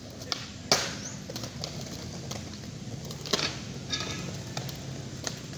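Skateboards rolling on concrete under a steady low rumble, with sharp board clacks: the loudest a little under a second in, another just past three seconds.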